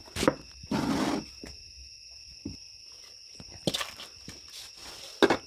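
Terracotta clay pots being handled on a table: a scrape about a second in, then a few sharp knocks, over a faint steady high-pitched whine.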